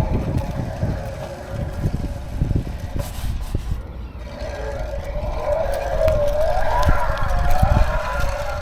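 Wind rumbling on the microphone, with a steady hum. About halfway through, a distant siren begins, its pitch rising and falling in slow swings.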